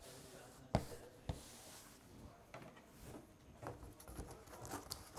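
Quiet office room tone with a few faint clicks and knocks from desk work, the two clearest about half a second apart in the first second and a half.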